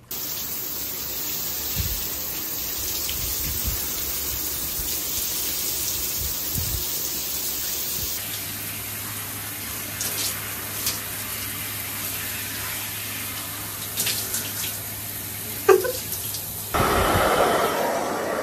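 Shower spray running steadily over hair as dye is rinsed out. Near the end there is a short knock, then a hair dryer switches on and runs.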